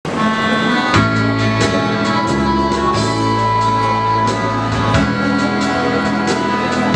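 Background music: an instrumental track with sustained notes over a bass line that changes about once a second, with a steady beat.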